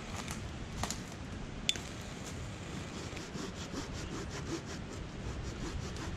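Rhythmic scraping on dry kindling at a fire lay, about four or five strokes a second from about two and a half seconds in, after two sharp clicks. Low wind rumble on the microphone underneath.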